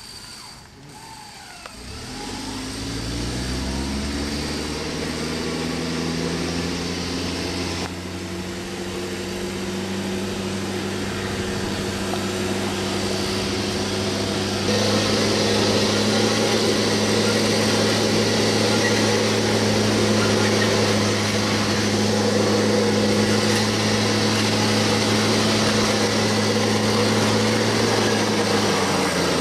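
Off-road vehicle's engine revving up, then held at steady high revs. It steps up to a louder, higher pitch about halfway through and falls off near the end.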